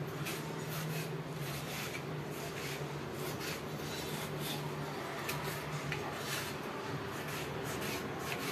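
Kitchen knife cutting through a tomato onto a wooden cutting board, irregular soft cutting strokes about two a second.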